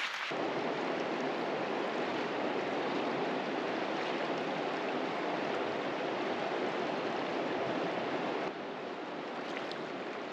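Steady rushing of a shallow, rocky river flowing over stones; the level steps down a little about eight seconds in.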